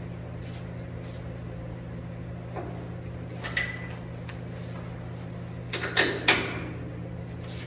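A few short knocks over a steady low hum, the loudest two close together about six seconds in.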